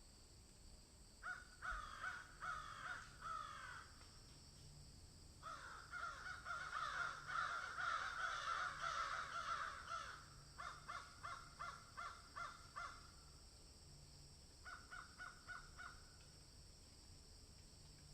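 Animal calls: four bouts of short, harsh, repeated calls, each call dropping slightly in pitch, with several callers overlapping in the second and longest bout. A steady high hiss runs underneath.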